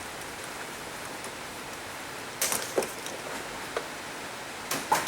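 A handful of short clinks and knocks, as of metal tools and parts being handled on a workbench, over a steady hiss. The first comes about halfway through, and a closer pair comes near the end.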